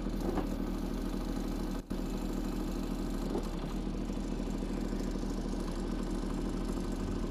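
Kubota K008-3 mini excavator's small D722 three-cylinder diesel running steadily, with a momentary break in the sound about two seconds in.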